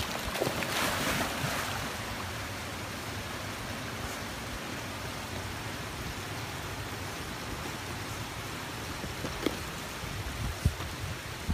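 Shallow river water running with a steady rush. About a second in, a louder splashing as a golden retriever wades into the water.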